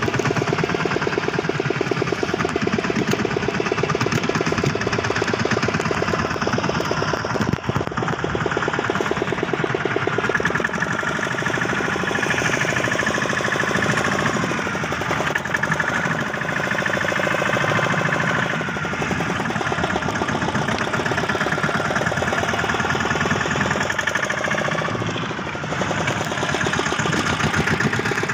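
Small fishing boat's engine running steadily with a rapid, even knocking beat.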